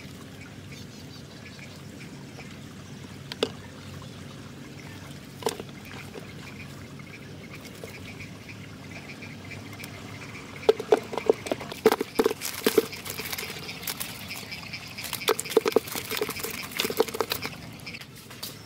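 Water trickling and dripping, with a couple of single knocks. Then, from about halfway through, a wire mesh trap rattles and clatters in quick runs of sharp metallic clicks as it is shaken and handled over a plastic bucket.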